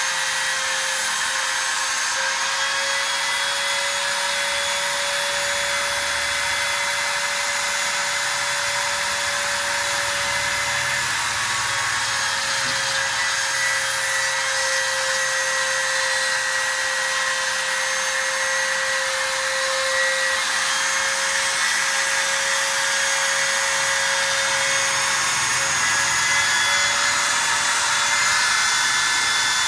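Automatic alu letter-cutting machine running, its spindle giving a steady whine with a hissing cutting noise as it works through the panel.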